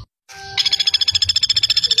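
Pelatuk bawang (flameback woodpecker) giving its fast, dense rattling call, about a dozen notes a second. The recording drops out briefly at the start, and the rattle resumes about half a second in.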